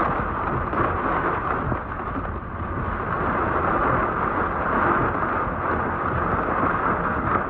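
Steady noise of a violent rain squall: heavy rain and wind in a dense hiss, with a low rumble beneath.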